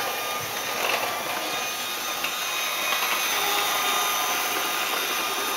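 Electric hand mixer running steadily, its small motor whirring as it beats muffin batter.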